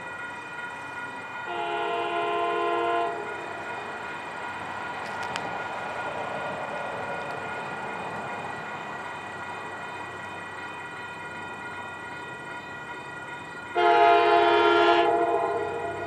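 Diesel locomotive horn sounding two blasts for a grade crossing, about twelve seconds apart, the second louder and closer. Between and under them a steady grade-crossing bell rings.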